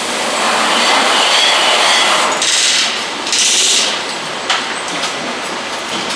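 Motorcycle engine assembly line machinery clattering, with two short hissing bursts a little past the middle and a sharp click near the end.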